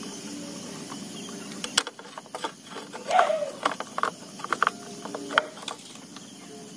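Scattered light clicks and taps of hands handling a thin wire and the plastic number-plate mount on a scooter's rear mudguard, busiest in the middle, with a brief vocal sound about three seconds in.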